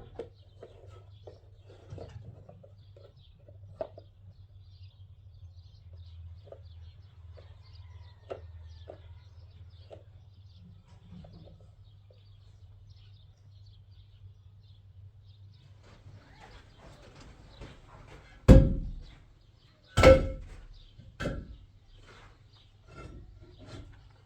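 Three heavy thumps about a second and a half apart in the last third, each with a short ringing tail, over a low steady hum and faint bird chirps.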